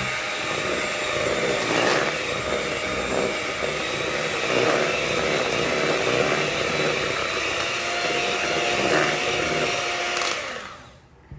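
Electric hand mixer running at low to medium speed, its beaters churning cream cheese and sugar. It is switched off near the end and whirs down to a stop.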